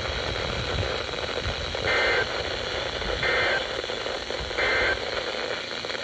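Three short Emergency Alert System SAME data bursts, the end-of-message signal, each a brief warbling two-tone chirp about a second apart, over a steady hiss of radio noise.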